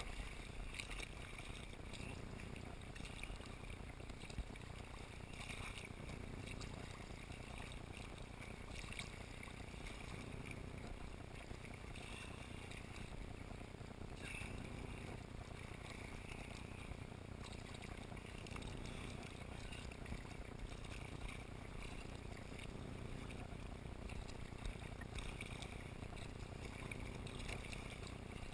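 Water splashing and lapping around a sea kayak as it is paddled, with the paddle blades dipping in every few seconds over a steady wash of water noise.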